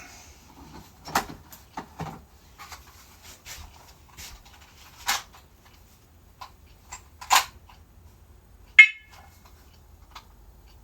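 Plastic clicks and knocks from handling a First Alert smoke and carbon monoxide alarm, its battery drawer and test button, as it is being unlinked and reset: about a dozen sharp clicks, with the alarm giving one short beep near the end.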